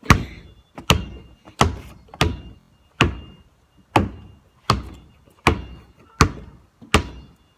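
Basketball being dribbled steadily, about ten bounces at an even pace of a little under one and a half per second, each a sharp thud with a short ringing tail.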